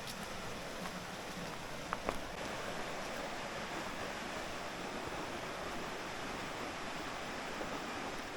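A mountain stream rushing over rocks, a steady wash of water, with a couple of faint ticks about two seconds in.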